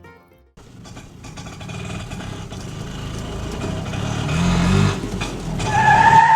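A vehicle engine running, growing steadily louder, with a steady high tone coming in near the end.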